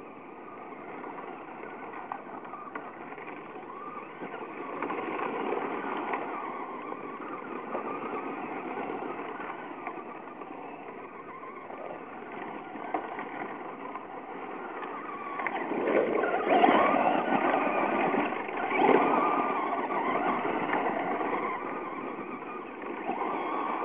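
Traxxas Slash radio-controlled short-course truck driving on loose gravel: its motor and tyres make a continuous rushing, crunching noise that swells as it speeds up, loudest in two surges about two-thirds of the way through.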